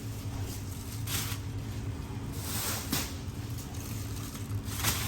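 Water sloshing and splashing in short swishes as fruit is washed by hand, three times, over a steady low hum.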